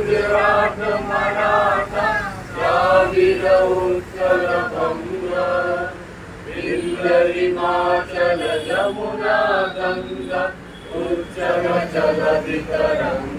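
A small group of men and women singing a patriotic song together, with a short break between phrases about six seconds in.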